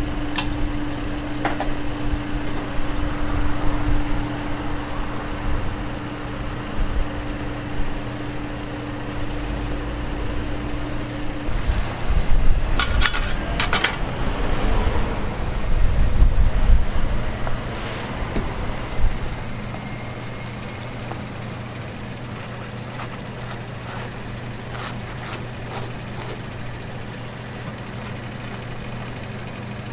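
Street-food griddle stall at work: a steady low mechanical hum under light clatter of metal utensils, with a cluster of sharp clinks about twelve to fourteen seconds in, and a louder low rumble that eases off near the twentieth second.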